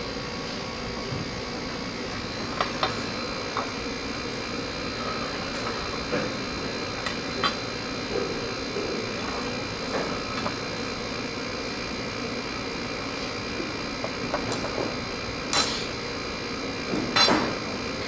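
Scattered light knocks and clinks of soft copper tubing and a steel ruler being handled on a wooden workbench, a few seconds apart and sharpest near the end, over a steady room hum.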